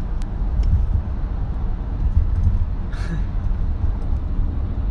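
Steady low road rumble inside a moving car's cabin, with a brief faint sound about three seconds in.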